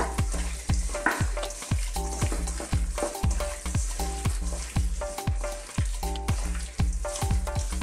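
Background music with a steady beat, over the wet sound of gloved hands kneading beef slices in a tapa marinade in a stainless steel bowl.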